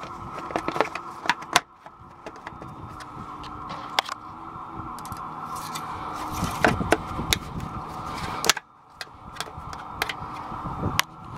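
Scattered knocks, clicks and rattles of a Sea-Doo's plastic engine cover being handled and fitted back in place, mixed with handling noise on the camera.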